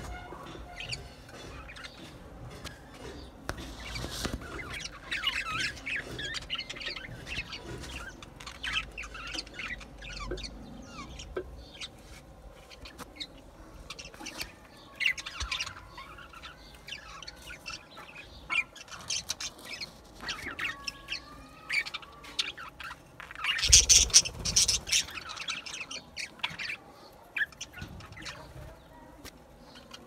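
A flock of budgerigars chattering, with overlapping chirps, warbles and squawks, and a louder flurry of calls about three-quarters of the way through.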